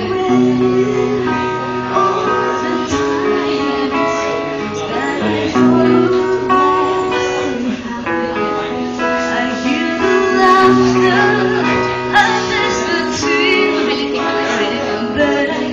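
Live band music led by guitar, with a voice singing over held bass notes.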